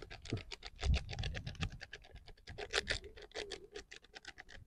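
Plastic spice sachet crinkling and crackling as it is squeezed and shaken, tipping chilli powder into a metal bowl of flour: a dense run of small ticks and crackles with a few soft low knocks.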